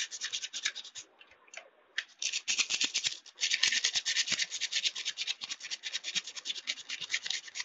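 Wet silicon carbide waterproof sandpaper rubbed rapidly back and forth along a dull scissor blade's bevel to sharpen it: a quick run of scratchy strokes, several a second. The strokes stop for about a second after the first second, then carry on.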